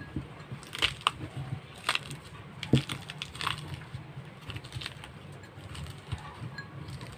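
Fresh oregano leaves (the thick, fleshy-leaved Philippine oregano) being crushed and squeezed by hand to press out their juice, giving irregular soft crackling clicks.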